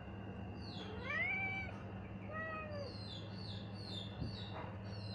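Persian cat meowing twice: a longer call that rises and holds about a second in, then a shorter falling one. Faint high-pitched chirps repeat in the background.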